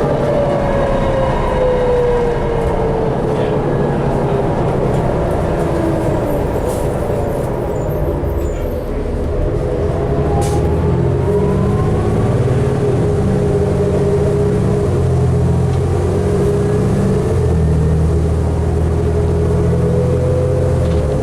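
A 2012 New Flyer D60LFR articulated diesel bus, heard from inside while riding. Its drivetrain whine falls in pitch over the first few seconds as the bus slows. From about halfway the engine drone grows heavier and the whine rises again near the end as it picks up speed.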